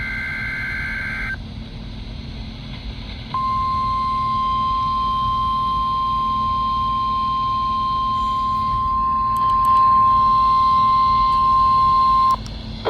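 NOAA Weather Radio broadcast over a receiver. The tail of a shrill two-tone SAME data burst cuts off about a second in. After a couple of seconds of static, the steady single-pitch 1050 Hz warning alarm tone sounds for about nine seconds and stops abruptly, all over constant radio hiss.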